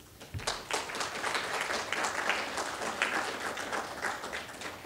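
Audience applauding. It starts about half a second in and dies away near the end.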